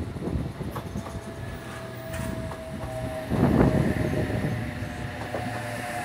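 Sydney Trains Oscar H-set electric double-deck train pulling into the platform and running close past: a rumble of wheels on rail, with a steady whine setting in about a second and a half in and a louder surge of rumble just past the middle.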